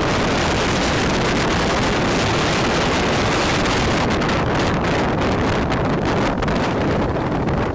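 Steady, heavy wind noise on the microphone, with a motorcycle engine running beneath it.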